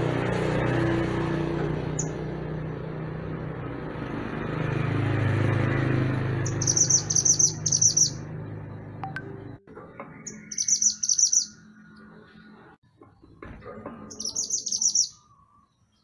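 Mantenan gunung songbird singing three fast, high-pitched trilled phrases a few seconds apart. For the first half a low rumble runs underneath and cuts off suddenly, around the time of the first trill.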